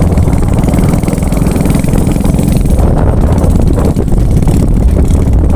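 Motorcycle engine running steadily on the move, a loud, dense low rumble with no change in pace.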